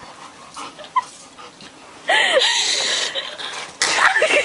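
A dog whining and yelping in short rising-and-falling cries, starting about two seconds in and again near the end, over a loud steady hiss.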